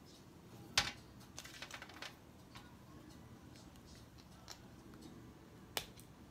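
Small plastic toy parts being handled: a sharp click a little under a second in, a short run of faint crackles, and another sharp click near the end.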